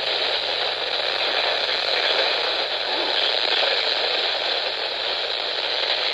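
Steady static hiss from a weather radio receiver on a weak, noisy signal.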